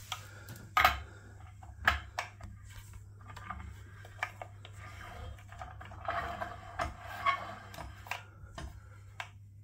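Small metal clicks and knocks with handling noise as a chrome rainfall shower head is screwed by hand onto the shower riser's threaded arm. There are a few sharp clicks in the first two seconds, then quieter fiddling.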